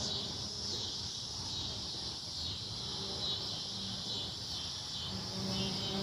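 A chorus of cicadas buzzing steadily: a continuous high-pitched, even shrill that holds without a break.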